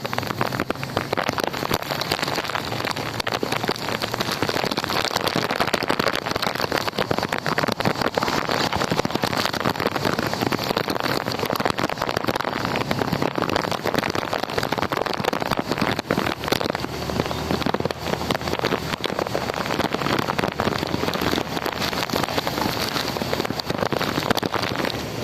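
Strong wind with heavy rain: a loud, dense, steady patter and rush.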